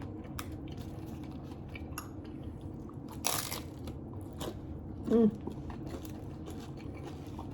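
Close-up chewing and crunching of a hard taco shell, with several sharp crackling bites, the strongest about three and a half seconds in. About five seconds in, a brief hummed voice sound.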